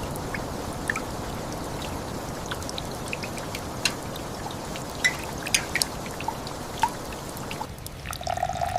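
Steady rain with water pouring and trickling, and scattered sharp drips. Near the end the rain noise thins and a steady tone comes in.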